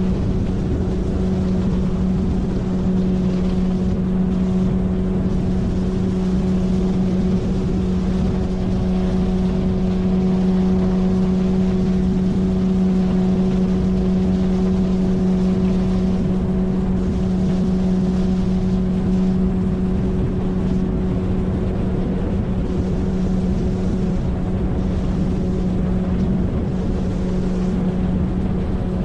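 9.8 hp outboard motor driving an inflatable PVC boat, running at a constant speed with an even pitch, over a steady hiss of wind and water.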